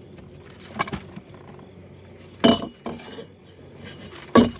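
A few sharp clinking knocks: a small one about a second in, then two louder ones about two and a half seconds in and near the end.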